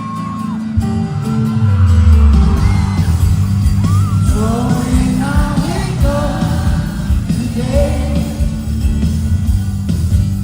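Live performance of a pop/R&B song: the band's deep bass comes in about a second in, and a singer's voice glides over it from about four seconds. The sound has the ring of a large hall.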